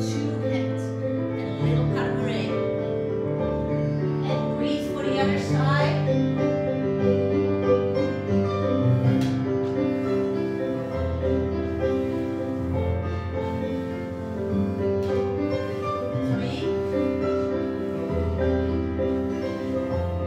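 Piano accompaniment for a ballet barre exercise, a slow lyrical melody over held chords, playing a Dutch song.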